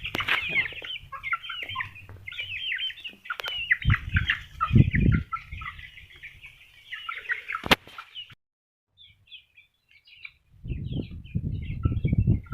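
A flock of young chicks peeping busily as they feed, with one sharp click about two-thirds of the way through. The peeping then thins to a few faint chirps, and a low rumbling noise comes in near the end.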